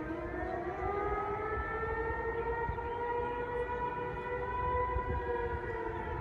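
Outdoor tornado warning siren wailing steadily, its pitch slowly rising, over a low rumble.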